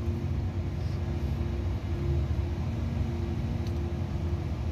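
A machine running: a steady low drone with a faint humming tone that keeps breaking off and coming back.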